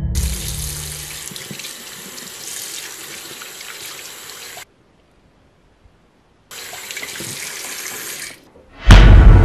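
Water from a bathroom tap running into a sink as hands are washed under it. The sound cuts to silence for about two seconds midway, then the running water resumes. Near the end a sudden, very loud low boom breaks in and keeps going.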